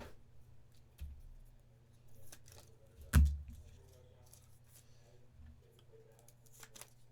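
Trading cards and card boxes being handled on a table: faint rustling and clicking, a soft knock about a second in and a sharp thump about three seconds in, over a low steady hum.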